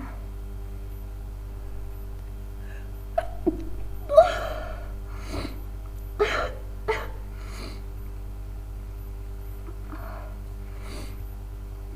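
A woman's sneeze, breaking into her singing. It starts with short catching breaths about three seconds in, and the loudest burst comes about four seconds in. Three or four shorter bursts follow over the next three seconds.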